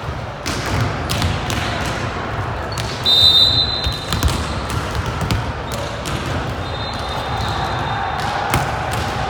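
Volleyball match sounds in a gym hall: repeated knocks of the ball being hit and bouncing over a steady background of crowd noise. A referee's whistle is blown about three seconds in, and more faintly again about seven seconds in.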